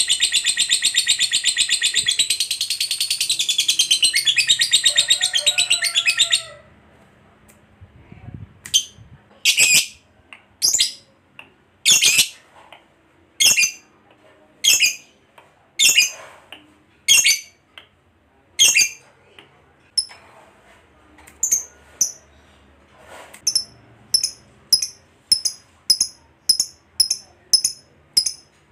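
Lovebird calling. It starts with a long, very fast, high chattering trill, the 'ngekek' that fighter lovebirds are kept for, which breaks off about six seconds in. After a short pause come single shrill calls about every second, quickening near the end into short high chips about two a second.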